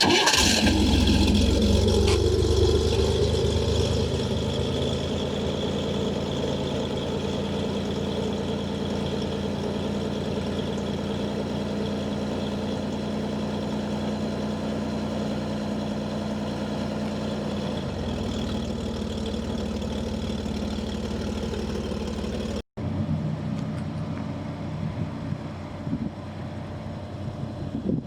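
1963 Chevrolet Corvair's 145-cubic-inch air-cooled flat-six engine catching and running, loudest for the first few seconds before settling into a steady idle. About 23 seconds in, the sound cuts off abruptly and a quieter engine sound carries on.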